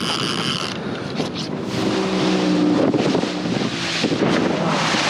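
Wind buffeting the microphone over a boat on choppy water, with a low steady motor hum coming in about two seconds in.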